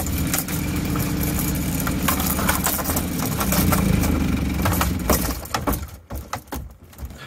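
A steady low mechanical drone with scattered clicks and knocks over it. The drone drops away about five and a half seconds in, leaving only a few knocks.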